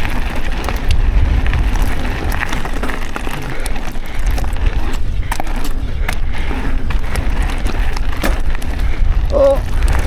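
Mountain bike being ridden over a dirt trail: tyres rolling over the ground and the chain and frame rattling with many sharp knocks, over a heavy rumble of wind on the microphone. A short pitched squeak comes near the end.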